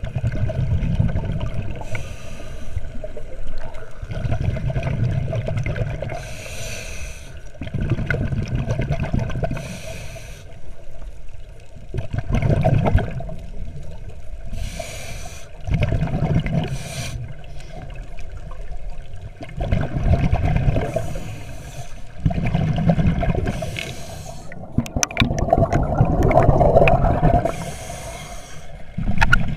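Scuba diver breathing through a regulator underwater. A short hiss on each inhale alternates with a low rumble of bubbles on each exhale, about one breath every three to four seconds.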